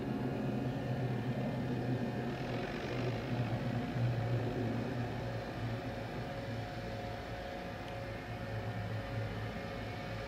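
Hellenic Railways class 120 electric locomotive humming and whirring steadily, its cooling fans and electrical equipment running, with a low hum and a higher steady whine over an even rush of noise.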